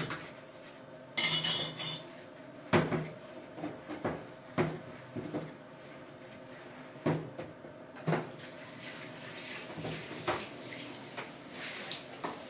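Dishes and cutlery clattering on a kitchen counter: trays, plates and utensils knocked and set down in irregular clinks and knocks, with a short loud noisy burst about a second in.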